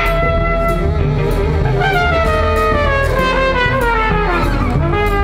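Flugelhorn playing a long held note, then a phrase sliding down in pitch, settling on a lower held note near the end, over a jazz band with drums.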